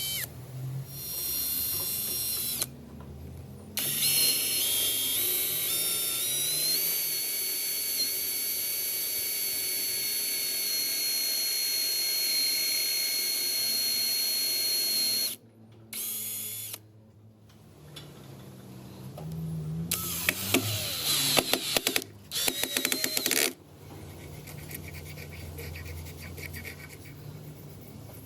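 Electric drill running in several bursts. The longest lasts about ten seconds, with a high whine that climbs in steps and then holds steady. Near the end comes a rougher, rattling burst as the drill bites into the work.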